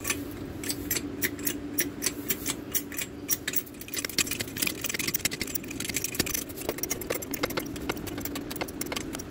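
Hydraulic bottle jack (Stark 50-ton) being pumped by its handle: a fast run of irregular metallic clicks and clinks, with a low steady hum through roughly the first half.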